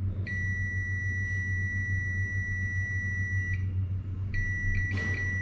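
Digital multimeter on its continuity setting giving a steady high beep for about three seconds, breaking off, then beeping again for about a second near the end, as the probes find a complete path for current through the rocker switch's wires. A steady low hum runs underneath.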